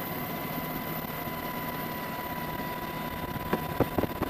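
Steady engine drone with a rushing noise and a faint steady high whine. A few sharp clicks come near the end.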